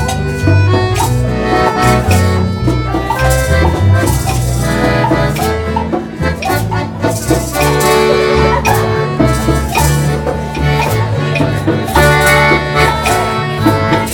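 Live accordion-led ensemble playing a melody, with guitar and hand percussion such as maracas keeping the beat.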